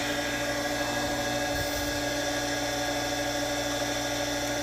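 Well pump motor running with a steady hum while it struggles to re-prime, with air still coming through the water line.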